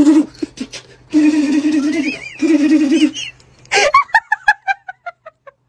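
A cat's low, wavering yowl, three long drawn-out calls. It is followed near the end by a quick run of pitched ticks that fade away.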